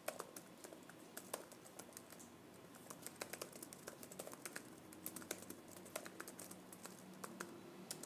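Fingers typing on a laptop keyboard: a fast, irregular run of light key clicks.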